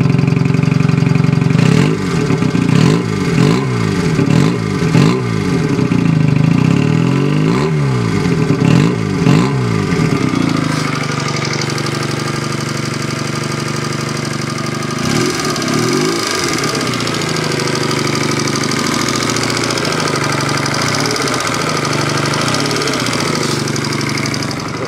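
2009 AJS NAC 12 motorcycle engine running through its dual exhaust: revved in about seven quick blips, each rising and falling, from about two seconds in, then dropping back to a steady idle with a few lighter blips later.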